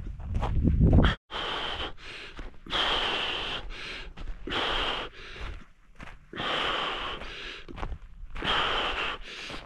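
A man breathing hard from the exertion of carrying heavy kettlebells, one loud breath about every one and a half to two seconds. A loud low rumble fills the first second and cuts off abruptly.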